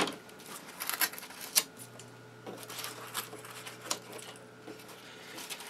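Scattered sharp clicks and light taps from foam board being handled and a snap-off utility knife being set down on a workbench, over a faint steady hum.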